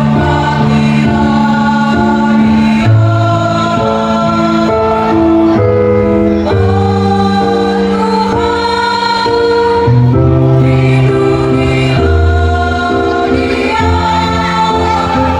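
A mixed choir singing in several parts, holding long notes that change together every second or so.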